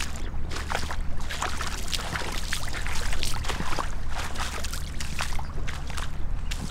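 Two people in gumboots wading through shallow floodwater, a steady run of overlapping splashes and sloshes from their steps.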